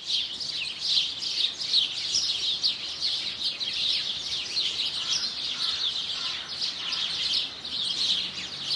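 A chorus of small songbirds twittering: many quick, high chirps overlapping in a dense, continuous stream.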